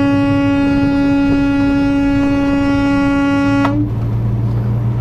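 Truck air horn held in one long, steady blast that cuts off suddenly about three and a half seconds in, leaving a truck engine's drone.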